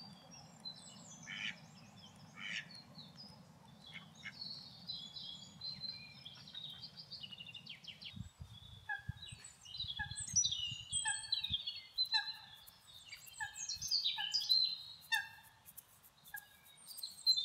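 Wild woodland birds singing and calling, many short overlapping chirps and trills. From about halfway through, one bird repeats the same short call over and over at an even pace, roughly one every half-second or so, over a faint low rumble.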